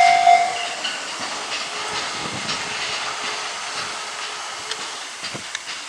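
Japanese level-crossing warning bell ringing in a steady two-per-second electronic clang, then stopping about half a second in. Noise from a departing train follows: a hiss with scattered clicks of wheels on rail, slowly fading.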